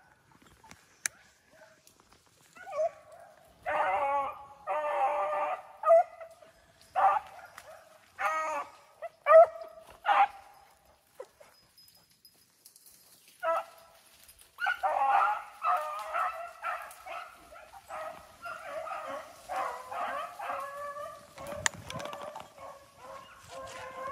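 A pack of rabbit-hunting dogs baying as they run a swamp rabbit's trail. First there are scattered separate calls, then after a short lull several dogs give voice together in a steady run of overlapping bays.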